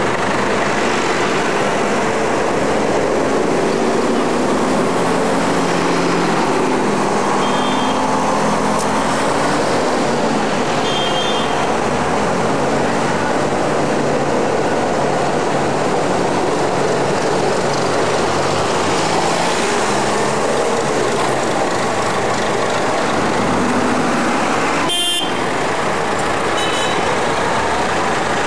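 Diesel tractor engines running as tractors drive past close by one after another, the engine note rising and falling as each goes by. A brief sharp rattle near the end.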